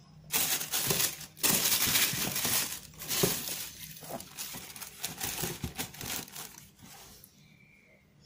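Thin tissue wrapping paper crinkling and rustling as it is handled inside a cardboard shoebox. It is loud for the first few seconds, then softer, and dies away about seven seconds in.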